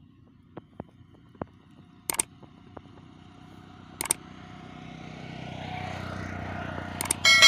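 Sound effect of a subscribe-reminder overlay: sharp mouse-button clicks about two and four seconds in, a hiss that grows louder, then two quick clicks and a bright bell ding right at the end, the loudest sound.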